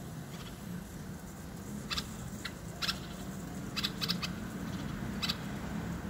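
Common bulbul calling: a handful of short, sharp notes from about two seconds in, over a steady low background hum.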